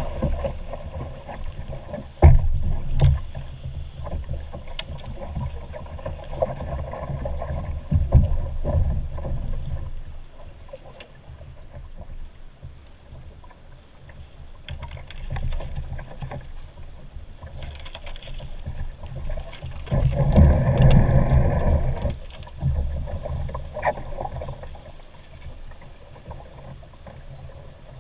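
Canoe being poled through fast floodwater: steady rushing and lapping of the current against the hull, with a few sharp knocks and a louder surge of water noise about twenty seconds in.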